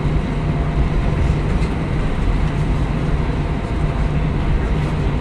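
Inside an Airbus A320-family airliner's cabin: steady jet engine noise over a deep rumble from the wheels on the runway as the plane rolls along the ground, likely the takeoff roll.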